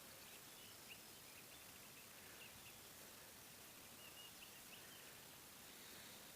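Near silence: faint hiss with a few faint, scattered bird chirps.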